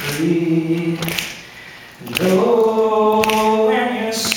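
A man singing a cappella into a microphone: a short sung note at the start, then after a pause a long note that slides up into pitch about two seconds in and is held.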